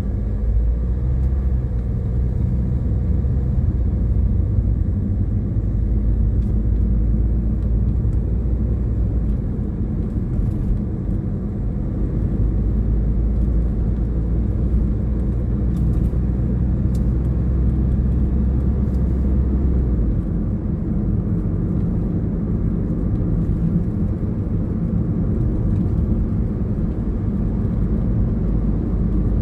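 Car on the move: a steady low rumble of engine and road noise, its deepest part easing off about 20 seconds in.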